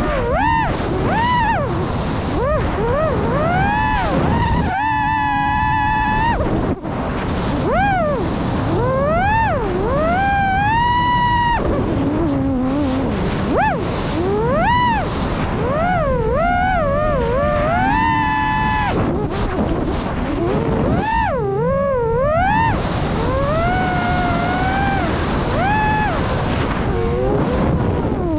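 Electric motor and propeller of a Fossilsstuff Tomahawk FPV wing, heard from its onboard camera: a whine that swoops up and down in pitch with the throttle and holds at its top pitch for a second or so several times, over constant wind rush.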